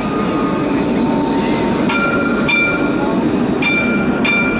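Alstom Citadis tram running with a steady rumble. Its warning bell dings twice about two seconds in, and twice again near the end.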